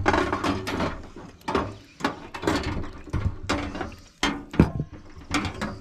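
Irregular metallic knocks, scrapes and rattles of a propane tank being worked into a metal grill, with one sharper knock about three-quarters of the way through.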